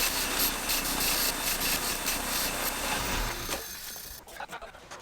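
Steady abrasive rubbing as brake caliper parts are cleaned. It stops about three and a half seconds in, leaving a few light clicks and knocks.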